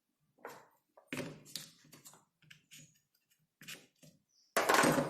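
Workbench handling sounds: a series of small clicks and knocks as hard plastic parts and tools are handled, then a louder clattering rattle about four and a half seconds in.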